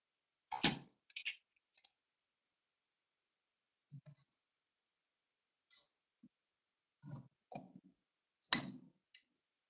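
Sparse, irregular clicks and light knocks, about ten over several seconds, with the loudest near the end.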